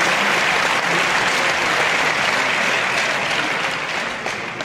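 Live crowd applauding, loud at first and fading toward the end.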